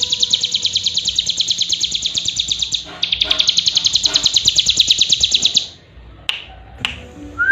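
Young ciblek gunung (cigun, a prinia) singing a fast, even trill of high ticking notes, about ten a second. The trill breaks briefly near three seconds in and stops after about five and a half seconds. Two sharp clicks follow near the end.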